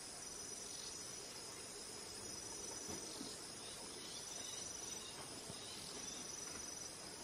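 Steady high-pitched chorus of insects trilling, with one trill breaking off and resuming every second or so.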